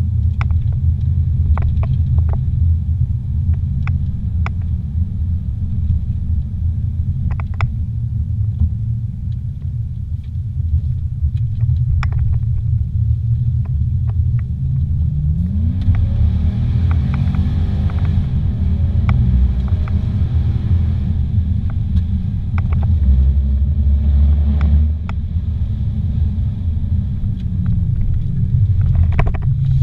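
Car driving at speed, heard from inside the cabin: a steady low rumble of engine and road. About halfway through the engine note rises and wavers for several seconds as it pulls through the bends. Scattered light clicks run throughout.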